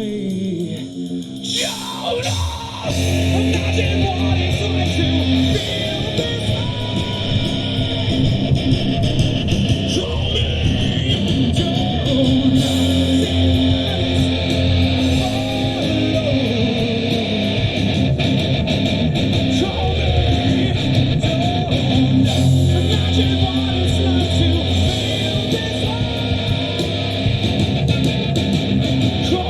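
A live rock band playing an instrumental passage with guitars. The full band comes in louder about three seconds in and keeps going steadily.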